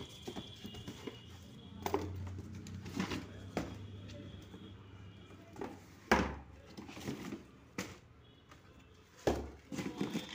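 Plastic supplement tubs knocking and shifting inside a cardboard box as they are handled, with cardboard flaps scraping and rustling. Two heavier thumps come about six seconds in and again about three seconds later.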